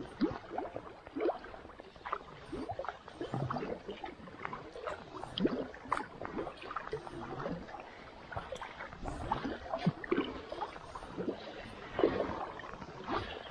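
Kayak paddle strokes in calm river water: the blades dipping and pulling through, with irregular small splashes, drips and gurgles from each stroke.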